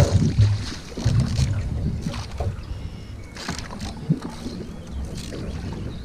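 Single-blade canoe paddle strokes dipping, splashing and swishing through calm water beside the hull, a few strokes a second or more apart, the loudest right at the start.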